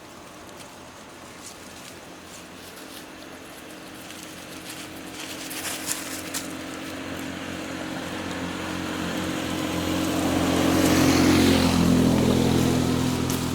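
A motor vehicle's engine approaching and passing, growing steadily louder to a peak about eleven seconds in, then fading, with a few sharp clicks midway.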